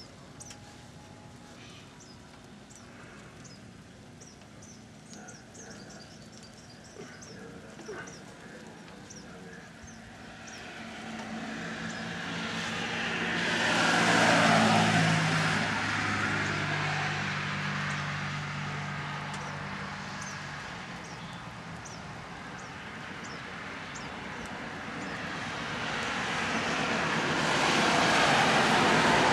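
A road vehicle passes close by: its tyre and engine noise swells to a peak about halfway through, the engine hum dropping in pitch as it goes past, then fades. A second vehicle approaches near the end.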